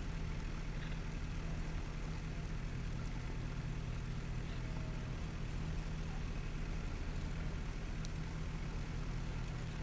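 An engine running steadily at a constant low hum.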